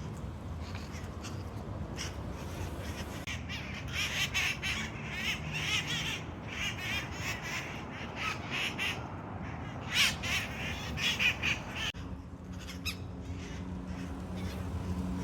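A flock of wild red-masked parakeets (cherry-headed conures) screeching and chattering in harsh bursts, loudest about four seconds in and again around ten seconds. A low steady hum comes in near the end.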